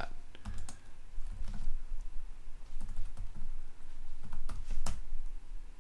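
Typing on a computer keyboard: scattered, unhurried keystrokes, with two louder key presses in quick succession near the end.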